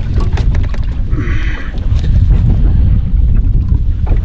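Wind rumbling on the microphone over boat and water noise, steady and low, with a short hiss about a second in.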